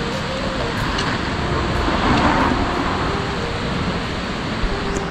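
Steady loud rushing of the flooded Teesta river, swelling briefly about two seconds in.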